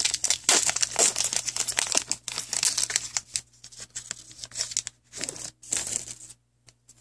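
Shiny foil trading-card pack wrapper being torn open and crinkled: dense crackling for about the first three seconds, then sparser crinkles as the cards are pulled out, stopping shortly before the end.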